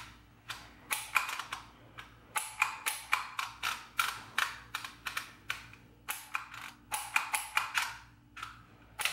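Handheld twist-dial embossing label maker punching letters into label tape: a run of sharp clicks, a few a second, broken by short pauses between letters.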